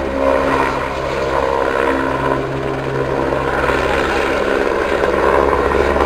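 Eurocopter AS350 B3 Ecureuil helicopter flying a steep banking display pass: steady single-turbine and rotor noise, with tones that shift slightly in pitch as it turns.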